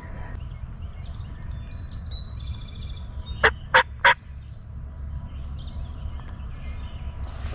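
Three short, loud turkey yelps in quick succession, about a third of a second apart, a bit over three seconds in.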